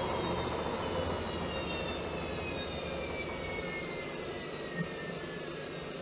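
Hoover Dynamic 1400 front-loading washing machine spinning down: the motor and drum whine falls slowly in pitch and the running sound eases. One brief knock about five seconds in.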